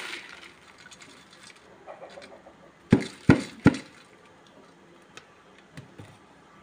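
Three sharp kitchen knocks in quick succession about three seconds in, like a utensil or container striking a pot. A few fainter knocks follow later over quiet room sound.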